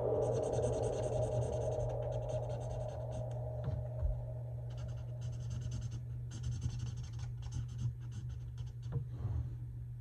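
Marker tip scratching across paper in quick back-and-forth colouring strokes, coming in runs with short pauses between them, over a low steady hum.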